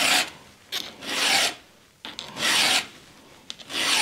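Hand file rasping across the cutters of a STIHL MS 462 chainsaw chain clamped in a vise, sharpening the chain. The file goes in slow, even strokes, a little more than a second apart.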